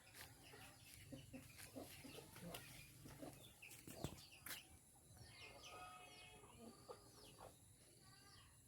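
Chickens clucking softly, with a run of short calls a little past halfway and scattered faint clicks.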